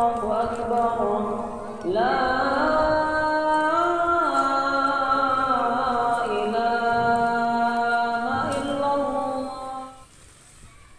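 One voice chanting in long held notes that step and slide between pitches, stopping about ten seconds in.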